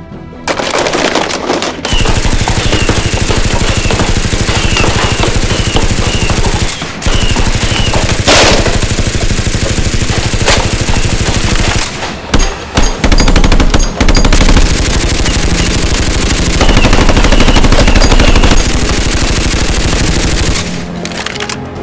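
Sustained rapid machine-gun fire, a gunfire sound effect standing in for Nerf blasters firing, with short breaks about 7 and 12 to 14 seconds in, easing off near the end.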